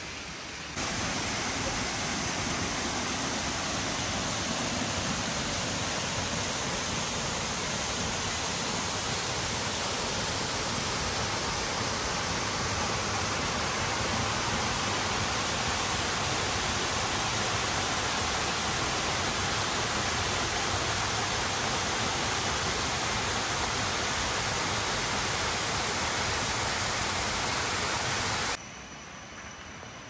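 Waterfall swollen with monsoon water, pouring in a steady, even rush. It cuts in abruptly about a second in and cuts off suddenly near the end.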